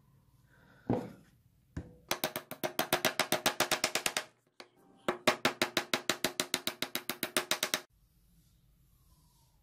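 Fast back-and-forth rubbing on a butcher's chopper's wood-and-brass handle, heard as rapid knocks of about seven strokes a second with a ringing note. There are two runs of two to three seconds each, with a single thump about a second in.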